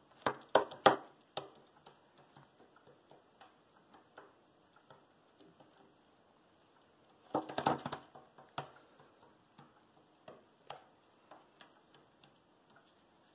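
Fantail pigeon pecking and scuffling at toothpicks on a wooden tabletop: sharp taps and clicks on the wood. There are three loud taps right at the start, a quick flurry of clicks about halfway through, and scattered light ticks between.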